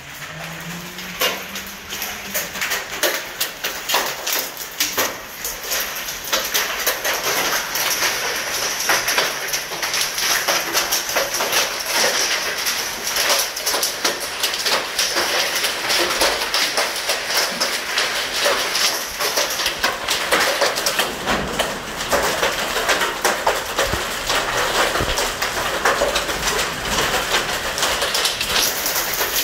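Half-inch hail falling hard, a dense patter of sharp clicks and taps as hailstones hit paving stones, a glass tabletop and metal chairs. It grows heavier over the first several seconds.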